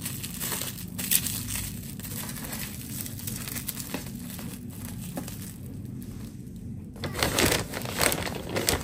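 Plastic cling wrap crinkling and rustling as it is folded tightly around uncooked spring rolls. Near the end a zip-top freezer bag rustles in louder bursts as the wrapped rolls are put into it.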